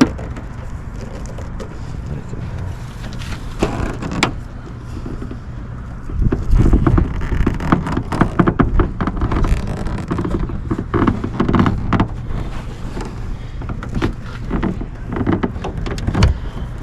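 Irregular plastic clicks and knocks from prying a car's stock rear wing and its clips off the trunk lid with a pry tool, over a low rumble that grows louder about six seconds in.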